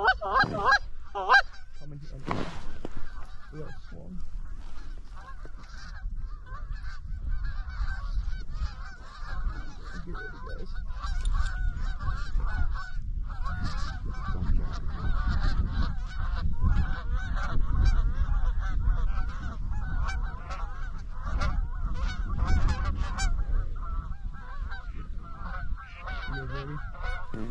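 A large flock of Canada geese honking as it flies in, many overlapping calls at once, with a few louder single honks in the first second or so.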